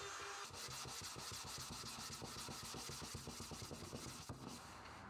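Faint rubbing of a gloved hand and cloth over the wooden case of an antique metronome, in quick, irregular scrubbing strokes.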